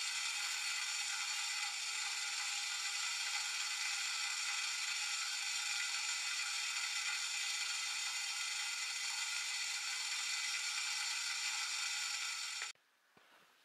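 Gas burner under a grill rack hissing steadily, then cutting off suddenly about a second before the end.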